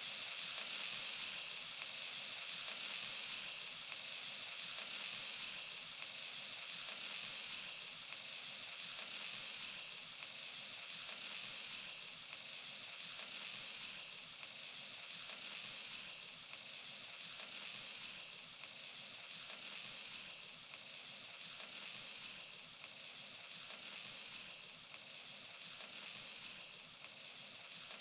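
Ground beef patties frying in oil in a lidded frying pan over low heat, giving a steady sizzle that slowly eases off.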